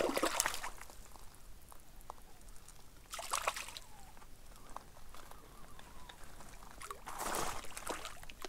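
A hooked grayling splashing and thrashing at the lake surface as it is played in close to shore. The splashing comes in three short bouts: at the start, about three seconds in, and a longer one near the end.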